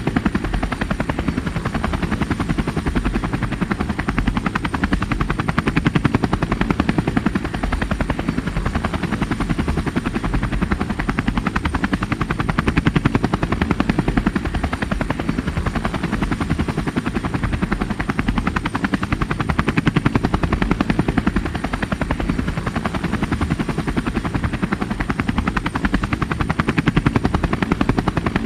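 Helicopter rotor chopping in a fast, steady beat with engine noise underneath, swelling and easing slightly about every seven seconds.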